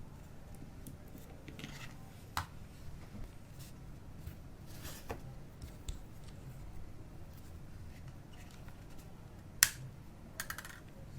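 A few separate sharp clicks over a low steady hum, the loudest about nine and a half seconds in, followed by a quick cluster of small clicks.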